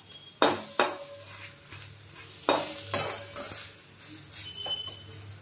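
A metal spatula pressing and scraping a stuffed paratha in a frying pan, with several sharp clinks and scrapes against the pan over a faint sizzle of frying.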